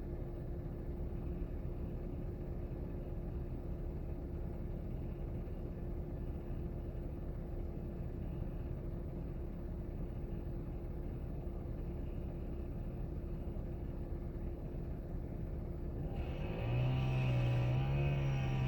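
An engine runs steadily with a low rumble. Near the end a louder engine note comes in and revs up and down briefly.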